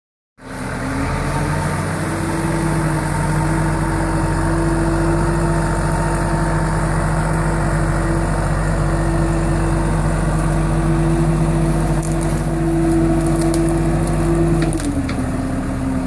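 Case skid steer loader's engine running steadily under throttle while the grapple carries a tree limb; its note drops a little near the end. A few sharp cracks, like twigs snapping, come in the last few seconds.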